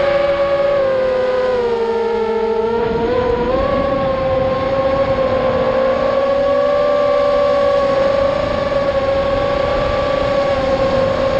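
Vortex 250 Pro racing quadcopter's brushless motors and propellers whining in flight, heard on board. The whine drops in pitch over the first couple of seconds, climbs back near three seconds in, then holds steady.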